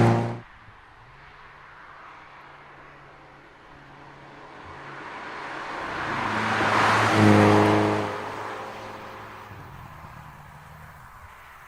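Hyundai Kona N's 2.0-litre turbocharged four-cylinder engine and exhaust driving past. A loud engine note cuts off suddenly at the start, then a low steady hum, then the car approaching and passing, loudest about seven seconds in and fading away.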